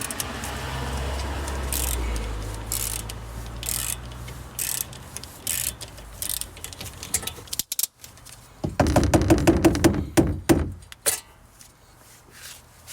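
Metal hand tools clicking and clanking during brake work on a car, with a dense run of rapid ratchet-like clicks about nine seconds in.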